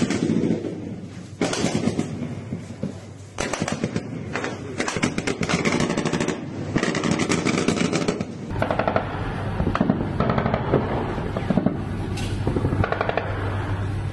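Repeated bursts of rapid automatic gunfire from the Russian warship Sergei Kotov's deck guns, fired at attacking sea drones, with short gaps between bursts.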